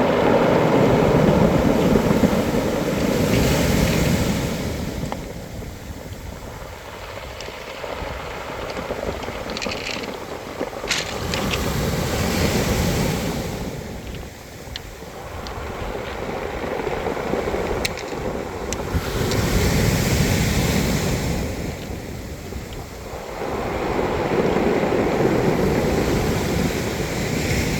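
Sea waves washing onto a pebble beach, surging and drawing back about every seven to eight seconds, with a few sharp clicks of stones in the wash.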